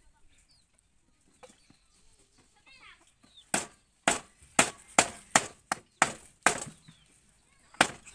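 Cleaver chopping raw duck meat on a round wooden chopping block: about eight sharp chops at roughly two a second, starting a few seconds in, the last one after a short pause.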